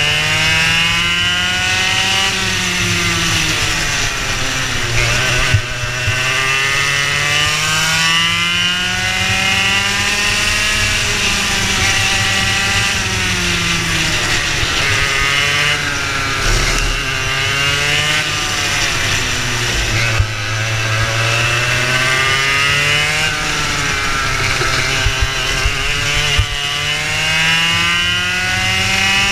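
Racing kart engine running at full race pace, heard onboard. Its pitch climbs on the straights and drops sharply under braking into the corners, several times over.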